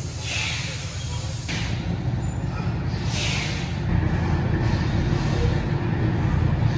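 Box truck's engine idling with a steady low rumble, slightly louder from about four seconds in. Two short hisses come through it, one near the start and one about three seconds in.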